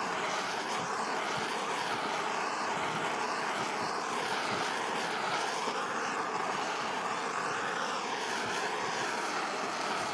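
Handheld gas blowtorch burning with a steady roaring hiss as its flame browns melted cheese. The tone of the hiss shifts slightly as the torch is moved over the dish.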